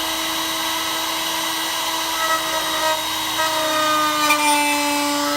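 Tubular key cutting machine's motor running with a steady whine while its cutter mills the sixth of seven cuts into a tubular ace key blank. The pitch sags slightly about three and a half seconds in, as the cutter takes load.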